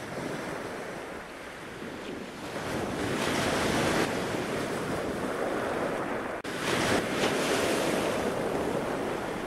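Intro sound effect: a steady rushing noise with no tone to it, swelling about three seconds in and again near seven seconds, with a brief drop just before the second swell.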